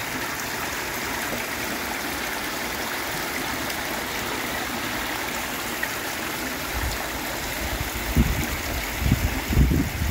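Muddy rainwater runoff rushing over gravel and rocks during a heavy downpour, a steady, even rush of water. Low rumbles join in from about seven seconds in.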